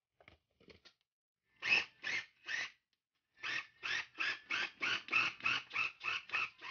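Ninja food chopper's motor and blades pulsed in short bursts, chopping cold butter and egg into flour for pie dough: three pulses, then a quicker run of about a dozen at roughly three a second. A few faint clicks come first, about a second in.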